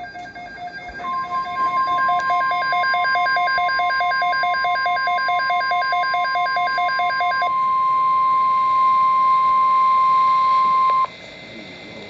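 NOAA Weather Radio alert: the steady 1050 Hz warning alarm tone sounds for about ten seconds and cuts off suddenly, marking an alert before the next watch message. For most of the first half it overlaps a rapid pulsing beep, the receiver's own alarm going off for the alert.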